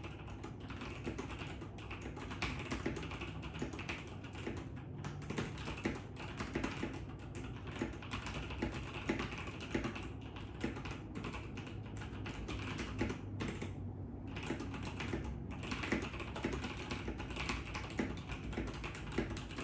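Fast, continuous typing on a mechanical keyboard with brown switches: a dense, unbroken run of key clacks.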